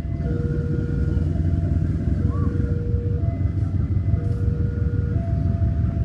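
Diesel-electric locomotive engine running with a steady low rumble while shunting. Over it sounds an electronic two-tone warning, switching between a lower and a higher note about once a second.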